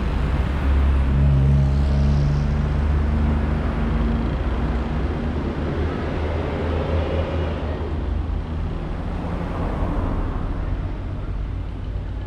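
Rush-hour city road traffic: a city bus's engine runs close by, loudest in the first few seconds, over a steady wash of passing cars and motorbikes that slowly grows quieter.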